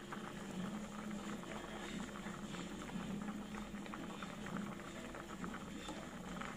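A pot of sweet red bean soup boiling over a medium gas flame: a steady, dense bubbling and popping of the thickening, sugared liquid.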